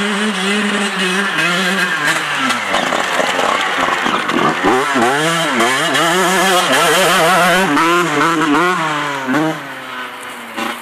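Honda CR125 two-stroke dirt bike engine running at a steady pitch for a couple of seconds, then revving up and down over and over as the bike is ridden. It drops away and quietens near the end.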